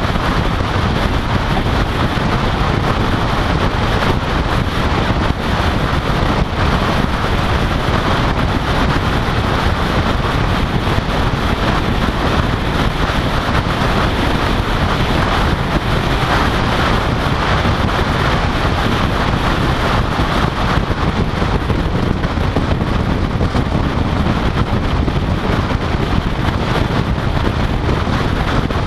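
Steady rush of wind over a microphone mounted on the outside of a car at freeway speed, mixed with tyre and road noise.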